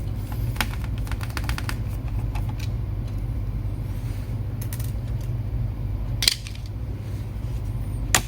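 Scattered small clicks and taps of hands working on an opened laptop to take out its hard drive, with a cluster of quick clicks near the start and a louder knock about six seconds in, over a steady low hum.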